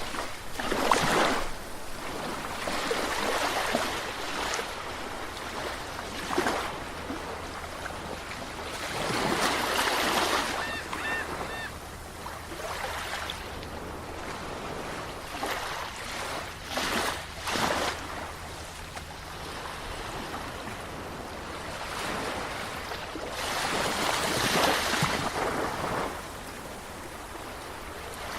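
Sea waves breaking and washing ashore, swelling and falling away every few seconds, loudest around a second in and again near the end. Three short high chirps about ten seconds in.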